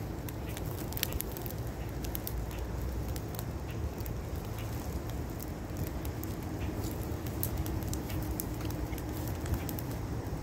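Wood fire burning in a metal fire pit, crackling and popping in scattered sharp snaps, over a low rumble of wind on the microphone.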